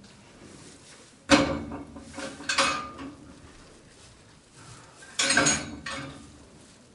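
Steel livestock pen gates clanking and rattling three times, each knock ringing on briefly, as a cow is pushed into the pen.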